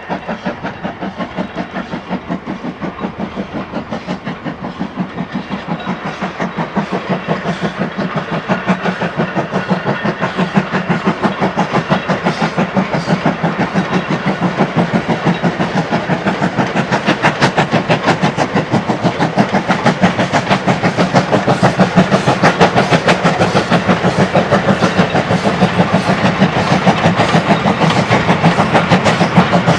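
GWR Hall-class 4-6-0 steam locomotive 'Hagley Hall' working a goods train, its exhaust chuffing in a fast, steady rhythm and growing steadily louder as it approaches.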